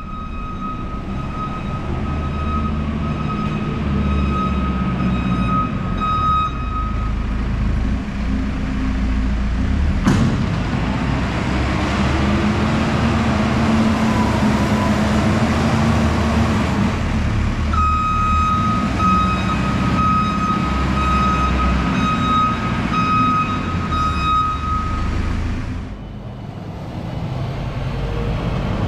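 Heavy vehicle engine running with a deep rumble. A steady high-pitched tone sounds for about seven seconds at the start and again for about seven seconds past the middle, and there is one sharp click about ten seconds in.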